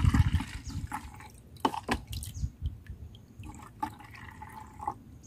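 Dark, soapy liquid poured from a plastic scoop into a plastic spray bottle, splashing and dripping as the bottle fills.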